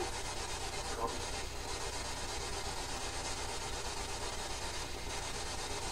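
Quiet room tone: a steady hiss with a low hum, and one faint brief sound about a second in.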